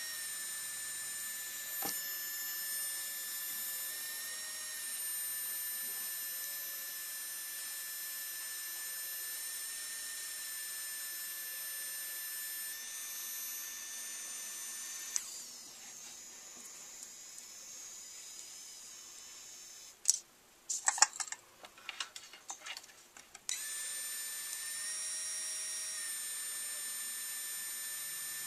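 3Doodler 3D pen running with a steady high whine. The whine stops about halfway through, and a few seconds of sharp clicks and knocks follow before it returns near the end.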